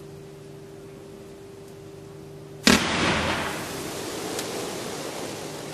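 A consumer fireworks cake slice firing a fan of gold glitter comets: one sharp, loud bang about two and a half seconds in as the comets are launched together, then the hiss and crackle of the burning comets, slowly fading. A steady low hum runs underneath before the bang.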